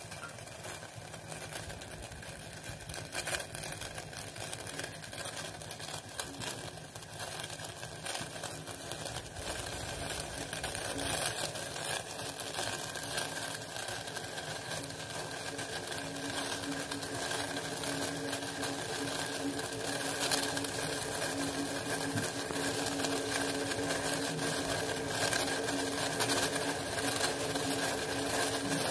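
Water heating in a steel pot on the stove: a steady hiss and faint hum that grows gradually louder as the water nears the boil.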